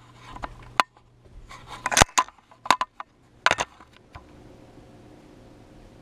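Handling noise of a small camera being moved and set down on a counter: a run of sharp clicks, taps and knocks over the first four seconds, then only a faint steady room hum.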